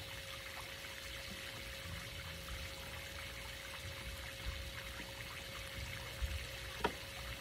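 Water from a swimming pool's fountain jet splashing steadily into the pool, with a faint steady hum underneath and a couple of small knocks near the end.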